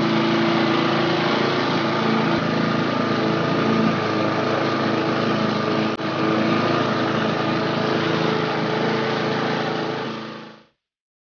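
Walk-behind rotary lawn mower's small petrol engine running steadily while mowing grass. There is a brief break about six seconds in, and the sound cuts off suddenly near the end.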